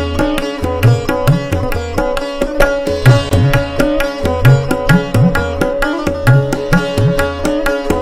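Instrumental background music: quick plucked notes over a held drone note, with a low beat recurring about once a second.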